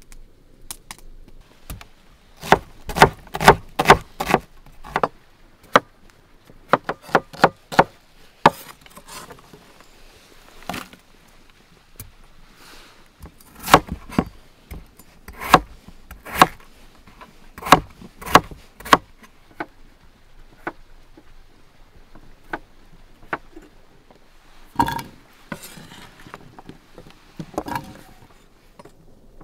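Large kitchen knife cutting peeled potatoes on a wooden board: a run of sharp, irregular chops, quick clusters with pauses between. Near the end the cut cubes are swept off the board into a clay bowl.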